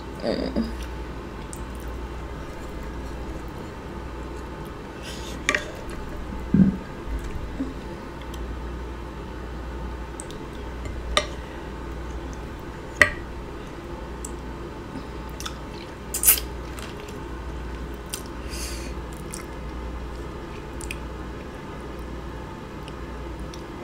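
Close-up mukbang eating: wet chewing and lip-smacking on buttery green-lipped mussels, with a handful of sharp smacks or clicks over a steady low hum.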